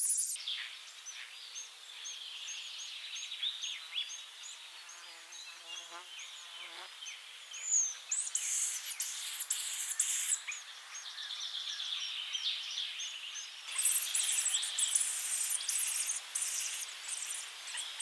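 Eurasian hoopoe nestlings calling from the nest hole: many short, thin, high chirps. Loud hissing begging bursts come about halfway through and again in the last few seconds.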